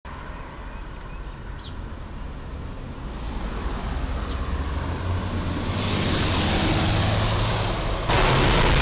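A truck's engine and tyres grow steadily louder as a refrigerated box truck approaches. About eight seconds in, a sudden loud crash as its insulated box body strikes the low railroad bridge's overhead crash beam and tears open.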